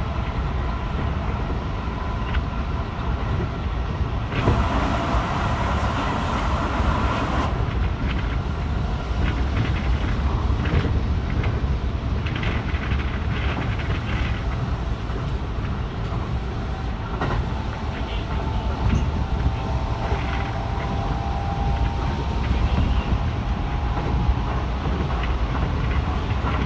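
Keihan 3000-series electric train running at speed, heard from inside: a steady low rumble of wheels on rail with scattered clicks. A louder rushing hiss swells about four and a half seconds in and falls away about three seconds later, and a faint steady whine comes in for a few seconds past the middle.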